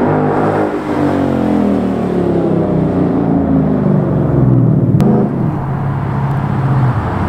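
2016 Ford Mustang GT's 5.0 V8 on a cat-back exhaust with stock headers, running past and pulling away, its exhaust note falling steadily in pitch. A sharp click comes about five seconds in, and after it the engine holds a steadier, lower drone.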